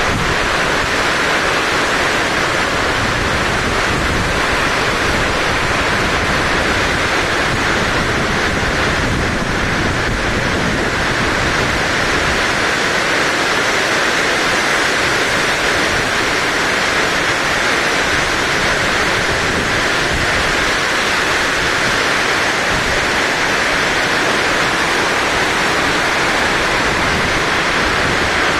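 Heavy rain falling, a loud, steady, even hiss that does not change.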